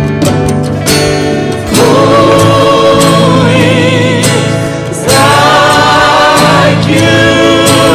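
Live gospel worship song: strummed acoustic guitar, then a male lead singer with backing singers holding long sung notes with vibrato, one phrase starting about two seconds in and another about five seconds in, over the band.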